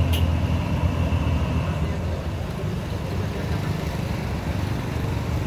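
Steady low diesel engine rumble from a river pusher tugboat working hard against a ferry barge, easing slightly after about two seconds. Two short sharp clicks right at the start.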